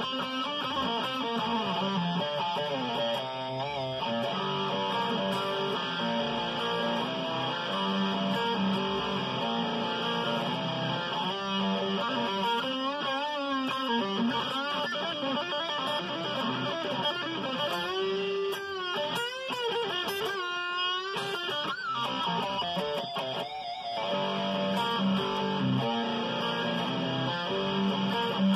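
Electric guitar playing a simple melodic riff by ear, with wavering bent notes in the middle and again about two-thirds of the way through.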